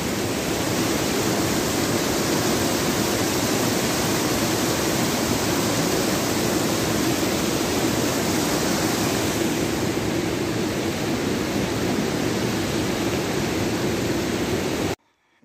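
Water pouring over the lip of a low concrete dam and rushing down over boulders: a steady, even rush of water that cuts off suddenly near the end.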